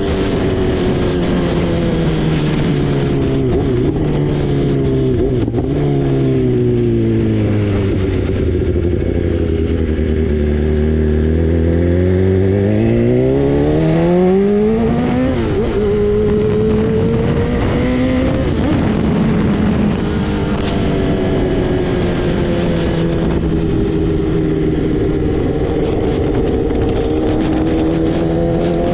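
2016 BMW S1000RR's inline-four engine running on a cold start through a full Akrapovic 4-into-1 exhaust. Its engine speed sinks slowly over about ten seconds, climbs again a few seconds later, then holds steady.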